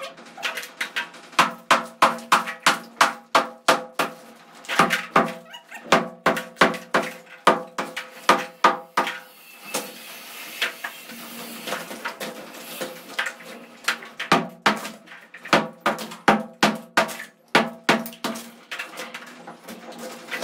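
A sledgehammer knocking down a brick wall, with runs of quick blows about three a second. Broken bricks clatter down between the runs, most of all in a stretch near the middle.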